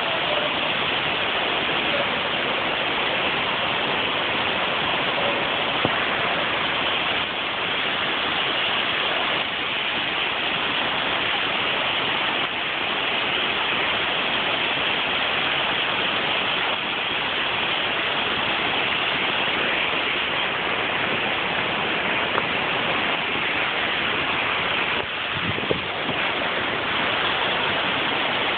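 A waterfall pouring into a river pool: a steady, unbroken rush of falling water.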